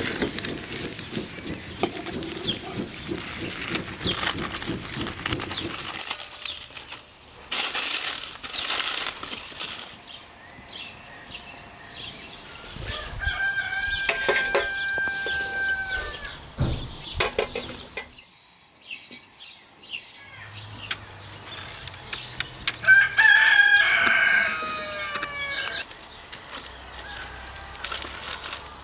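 A rooster crowing twice, each a held call of about three seconds; the second, about halfway through, is louder and falls off at the end. Loud knocking and rustling fill the first few seconds.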